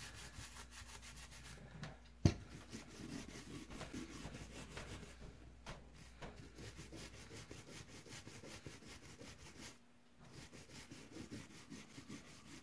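Quick, repeated scrubbing strokes on pliers freshly sprayed with degreaser, with one sharp knock about two seconds in and a brief pause near the end.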